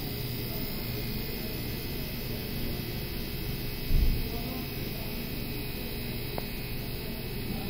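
Steady hiss with a low hum as gas is fed through a manifold gauge set into a car's air-conditioning system, pressurising it for a leak test. A single dull thump about four seconds in.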